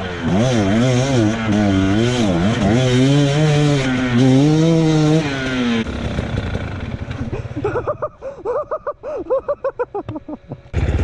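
Dirt bike engine revving up and down under load for the first six seconds, then dropping to low revs with a quick run of short throttle blips. It changes abruptly just before the end.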